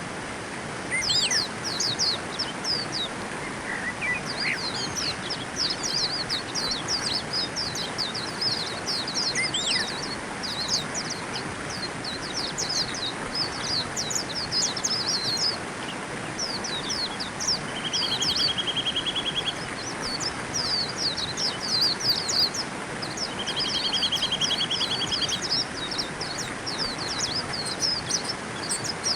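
White-eyes calling with rapid, high, thin chirps that run almost without a break. A buzzy trill comes twice, each about a second long, over a steady background hiss.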